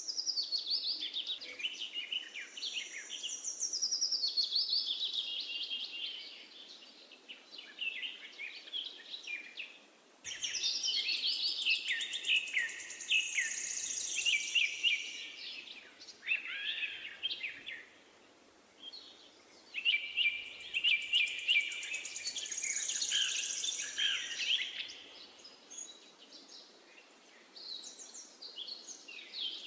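Songbirds singing: a dense stream of high chirps, trills and short falling whistles in phrases lasting several seconds, with brief lulls between them.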